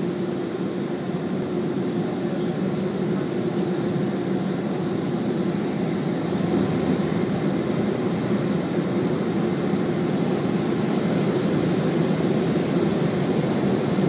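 Automatic car wash machinery running steadily, heard from inside the car: a continuous low hum and rush with a faint steady tone, slowly growing louder as the gantry comes closer.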